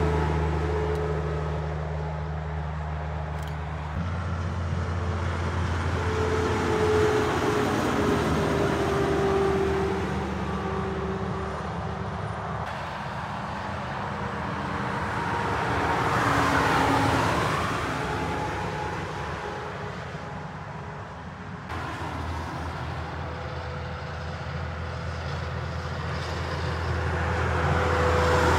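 Heavy trucks passing one after another on a motorway: engine and tyre noise swells and fades three times as each goes by, the engine note dropping in pitch as it passes.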